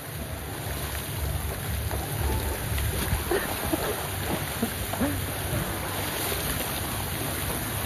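Splash-pad water jets spraying and splashing on wet paving, with wind rumbling on the microphone and faint distant voices.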